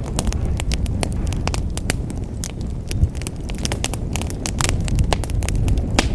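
Wood fire burning in a fireplace: irregular sharp crackles and pops over a steady low roar of flames, with one louder pop about halfway through.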